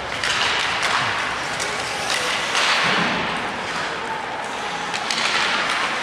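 Game noise in a large hall: scattered thuds and sharp knocks over a steady hiss, with faint distant voices.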